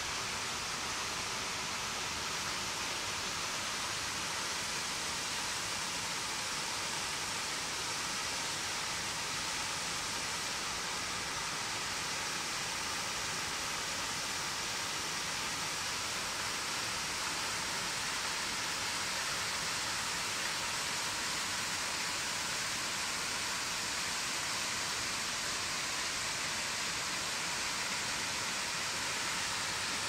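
Small multi-strand waterfall pouring over a rock ledge into a pool: a steady, unbroken hiss and rush of falling, splashing water.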